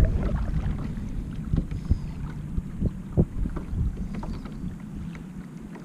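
Kayak paddle dipping into calm river water, with short splashes, drips and a few light knocks, the sharpest about three seconds in. Under it runs a low rumble of water and wind on the microphone, which fades near the end.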